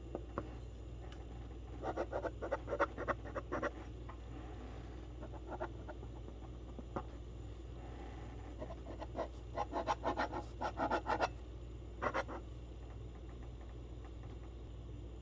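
Knife cutting through a slice of white bread on a plastic cutting board: quick scratchy strokes in two runs, a couple of seconds in and again around ten seconds in, over a low steady hum.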